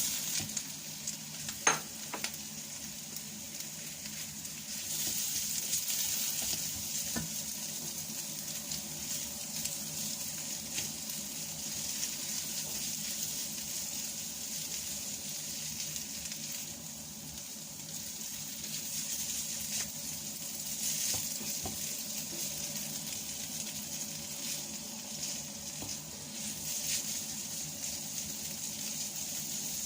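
Sliced cabbage and carrot stir-frying in hot oil in a pan: a steady sizzle, stirred now and then, with a sharp clink of the utensil against the pan about two seconds in.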